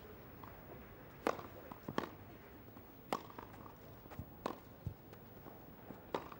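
Tennis rally on a grass court: a serve struck about a second in, then racket hits on the ball going back and forth, five sharp strikes in all, roughly one to one and a half seconds apart.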